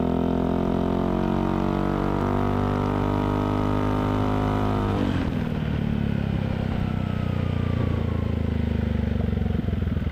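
Yamaha XMAX 250's single-cylinder engine through a Vilan MV1 stainless aftermarket exhaust with the dB killer removed. It is held at steady high revs for about five seconds, then the throttle closes and it drops to a lower, uneven putter.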